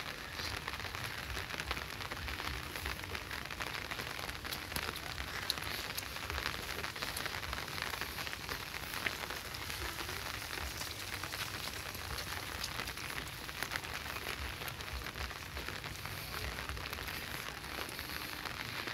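Steady rain falling on wet paving, a continuous patter of many small drop ticks.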